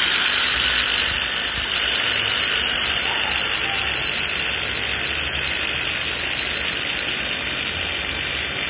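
Small electric motor, a drill-type stirrer, running steadily and spinning a bent metal rod in a glass beaker to mix a bleaching agent into distilled used engine oil: a steady high-pitched whir.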